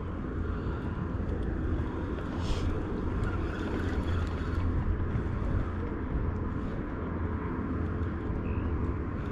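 Outdoor wind rumble buffeting an action camera's microphone, a steady low blustering with a faint hiss above it.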